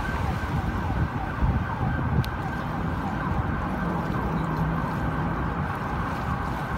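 Emergency vehicle siren sounding in quick, repeated pitch sweeps over a low, uneven rumble.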